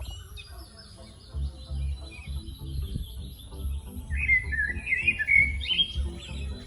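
Birds chirping and twittering over background music with a low pulsing beat; a louder warbling bird call comes in about four seconds in and lasts nearly two seconds.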